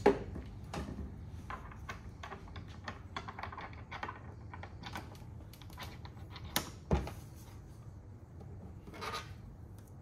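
Light clicks and taps of hands handling the head of a battery-powered hydraulic crimping tool, with a sharp knock at the start and two louder knocks a little past halfway.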